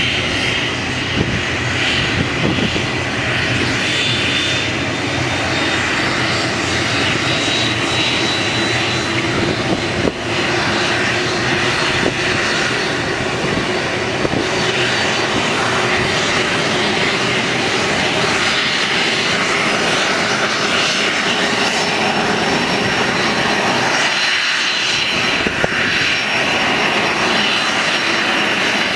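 Boeing 737-300's CFM56-3 turbofan engines running on the ground, a steady whine and rush. A high tone in the whine rises slightly a few seconds in.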